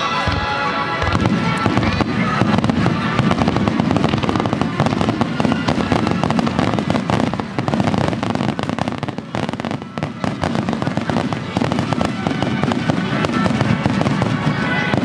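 Starmine fireworks finale: a rapid-fire barrage of aerial shells bursting and crackling in close succession, thinning briefly about nine seconds in, with music playing underneath.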